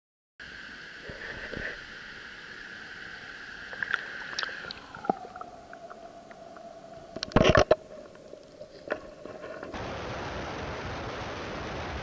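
Muffled stream water gurgling, with a few sharp knocks and splashes from hands working in the water, heard through a camera dipped under the surface. About ten seconds in it gives way to a steady, even rush of car road noise.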